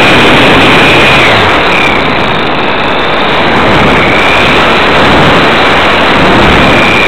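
Onboard sound of a Hobbyzone Super Cub RC plane in flight: the electric motor's high whine under loud, rushing airflow noise. About a second in the whine fades away, leaving mostly the rushing air, and it comes back faintly a few times, most clearly near the end.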